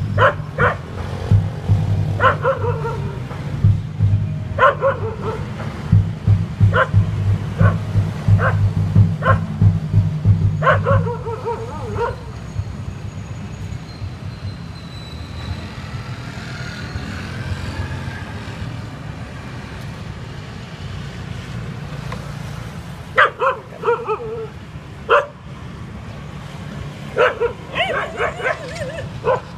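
Dog barking repeatedly in runs of short, high yelping barks, with a quiet gap of about ten seconds in the middle. A low steady rumble lies under the first half.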